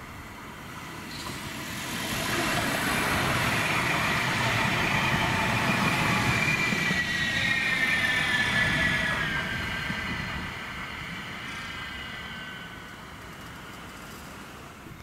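K5000 Stadtbahn light-rail train passing close by: rumbling steel wheels on rail, growing louder about two seconds in, with a high whine that drops in pitch as it goes past, then fading as it moves away.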